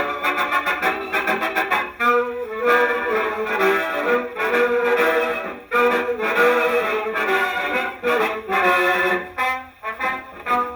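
Brass band instrumental break (trumpets, trombones and saxophones) from a 78 rpm record played acoustically on a wind-up RCA Victrola. The sound has no deep bass.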